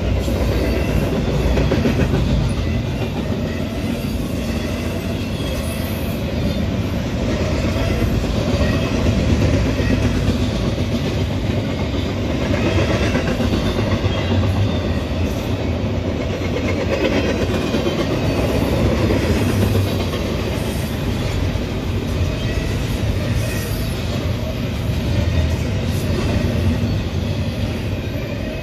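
Double-stack intermodal freight train's well cars rolling past at close range: a steady, low rolling noise of steel wheels on the rails.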